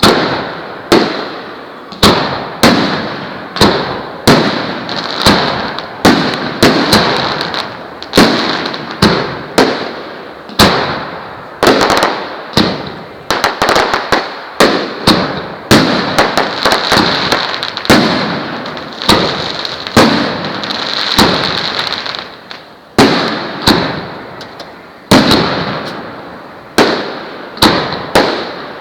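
Partizan 6500 fireworks salute firing shot after shot, a sharp bang roughly every half second to a second, each one trailing off. Midway the shots come thicker and run together into continuous crackling.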